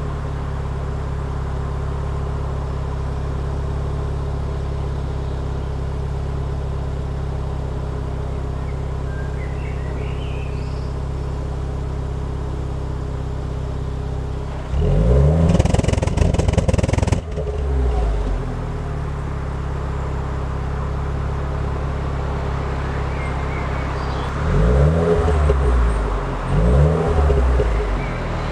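Renault Clio 4 RS's turbocharged 1.6-litre four-cylinder idling steadily through its stock exhaust. Around the middle it is revved once for about two seconds, then cut off sharply. It is blipped twice more near the end.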